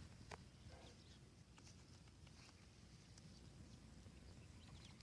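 Near silence: a faint low background rumble with a few soft scattered clicks.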